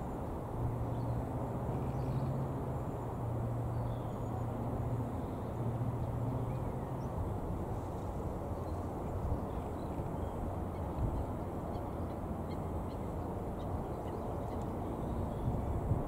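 Steady low wind rumble on the microphone, with a low hum through roughly the first seven seconds and faint scattered gull calls.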